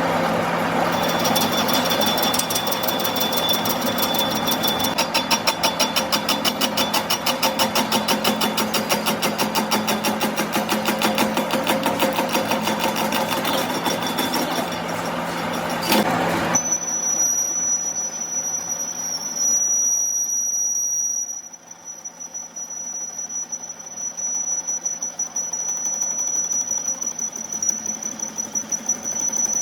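A workshop machine running with a fast, even clatter over a steady hum. About halfway through, the sound cuts abruptly to a quieter steady high-pitched whine.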